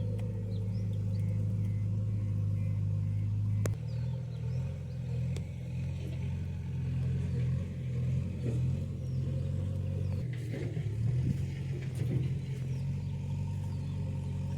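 Diesel engine of a JCB 3DX backhoe loader running under working load. Its note shifts abruptly about four seconds in and then rises and falls as the machine works.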